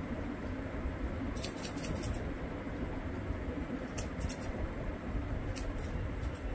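Hair-cutting scissors snipping a beard in short runs of quick cuts: a run of several about a second and a half in, a few more around four seconds in, and a couple near the end, over a steady low background hum.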